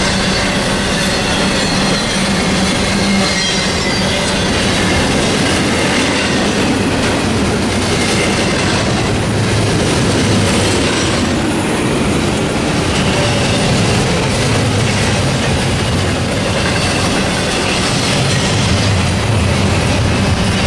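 Double-stack intermodal train's loaded well cars rolling past: a steady rumble and clatter of steel wheels on the rail joints, with a faint high squeal from the wheels.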